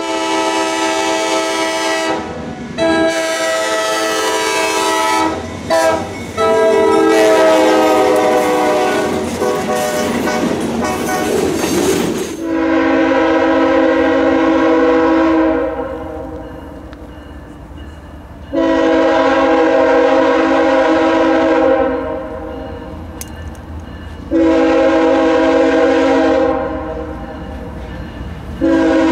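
Diesel locomotive air horns. First a horn blowing as a train approaches, its chord dropping in pitch as the train passes, with wheels clattering on the rails. Then another locomotive horn sounds three long blasts of about three seconds each, with a fourth starting near the end.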